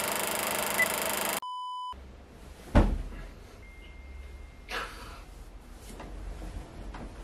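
Film-leader countdown sound effect: a steady hiss with short beeps, ending in a long steady beep about a second and a half in. Then a quiet room with a sharp thump a little later, a faint thin tone, and a short rustle of bedding as a man in bed stirs.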